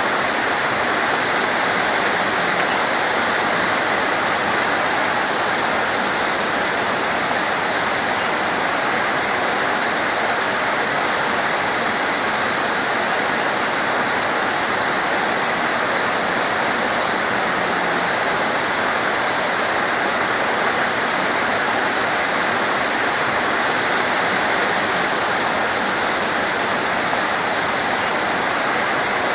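Torrential rain pouring down in a steady, dense hiss. A single sharp click is heard about halfway through.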